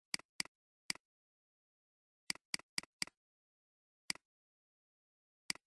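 Computer mouse button clicks, about nine short sharp clicks in irregular groups, each a quick press-and-release pair, with silence between them.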